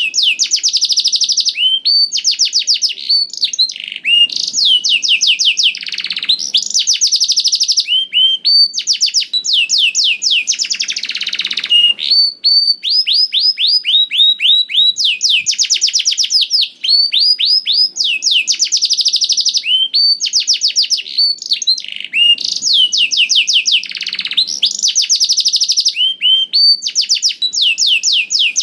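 Domestic canary singing a long, unbroken song: fast trills of rapidly repeated, downward-sliding high notes, switching to a new trill every second or two.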